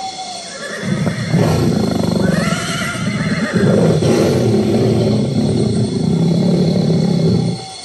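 Elephant call: a loud, rough call that starts about a second in and runs on for several seconds, with a higher rising-and-falling note around the third second, then cuts off just before the end.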